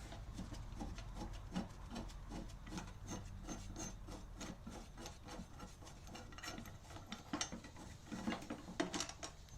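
Faint, irregular small clicks and scraping as the blade, nut and mounting parts of a push mower are handled and taken off. A few slightly louder clicks come near the end.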